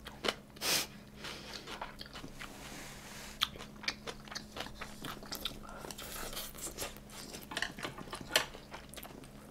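Quiet chewing and mouth sounds of a person eating close to the microphone: scattered small, irregular clicks and smacks, with a short louder burst about a second in.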